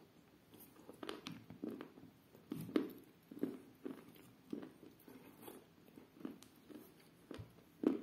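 A person chewing a mouthful of chalk and clay soaked in milk with the mouth closed: a run of short chewing sounds, about two a second.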